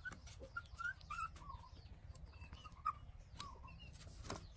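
Young puppy whimpering in a string of short, high squeaks, with a few sharp clicks among them.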